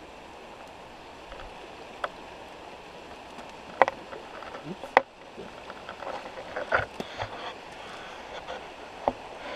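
Paper and plastic packaging crinkling and tearing as an item is unwrapped by hand, in several sharp crackles that come thickest a little past the middle. Under it runs the steady rushing of a flowing river.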